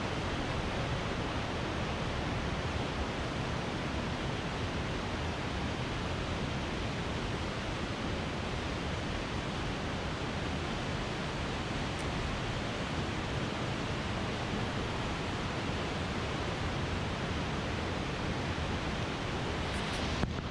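Steady rush of a waterfall and the rapids below it, water pouring over the rocks of a narrow gorge.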